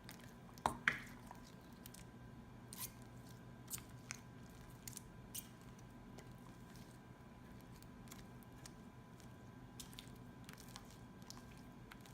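Sticky homemade glue-and-borax slime handled by hand: scattered faint squelches and sticky pops. Two sharp snaps just under a second in are the loudest sounds.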